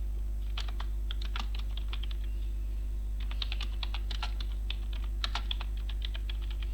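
Typing on a computer keyboard: irregular runs of key clicks, with a short pause about two seconds in, over a steady low hum.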